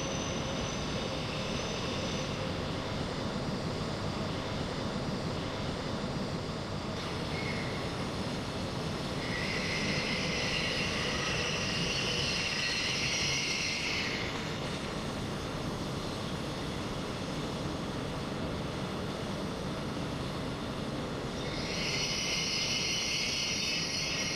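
E8 series Shinkansen train moving slowly along the platform: a steady running rumble, with two stretches of high-pitched hiss, one about ten seconds in lasting some four seconds and another starting near the end.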